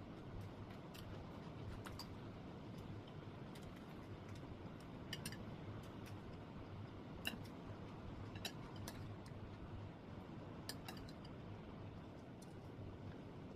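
Scattered light clicks and taps of utensils against dishes during a meal, a dozen or so at irregular moments, over a faint steady low hum.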